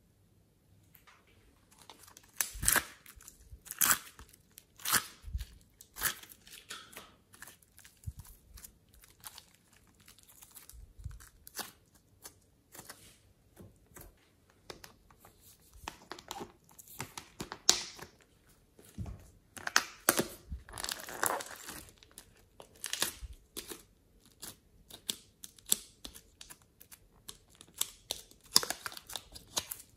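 Glossy slime being handled and pulled by hand, making irregular sticky clicks, pops and crackly tearing sounds, starting about two seconds in.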